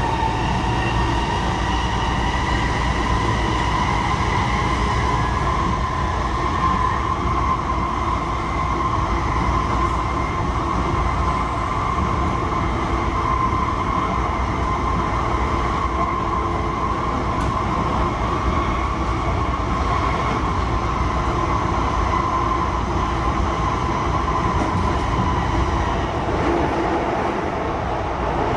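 Sotetsu 20000 series electric train heard from inside the car while running at speed: a steady whine from its Hitachi hybrid SiC VVVF inverter and traction motors, holding at nearly one pitch, over a continuous low rumble of wheels on rail.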